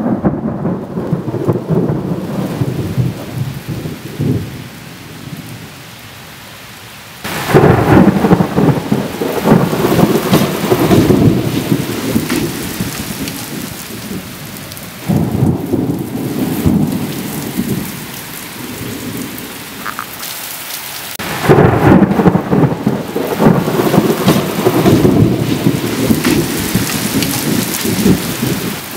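Thunder rumbling in long rolling peals during a rainstorm, with the hiss of rain underneath. A rumble fades out early on, then three loud peals break in suddenly, about a quarter, half and three-quarters of the way through, each rolling on for several seconds.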